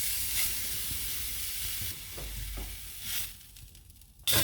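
Beef fillet sizzling as it sears on a very hot, dry cast-iron pan with no oil. The sizzle is strongest for the first two seconds, drops lower and patchier after that, and rises again at the very end.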